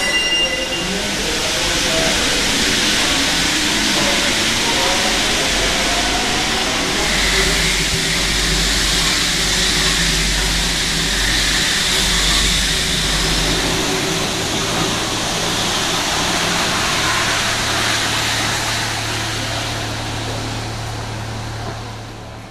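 RATP MP05 rubber-tyred metro train running along the platform: a loud, steady rushing hiss over a low rumble, which gives way to a steady low hum about two-thirds of the way in and fades near the end.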